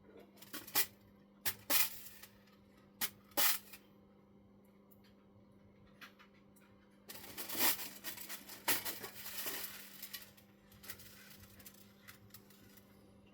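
Sharp clicks and clinks of small metal parts and tools being handled while screws are fitted to a model truck, then about seven seconds in a few seconds of rattling and rustling, like rummaging among small parts.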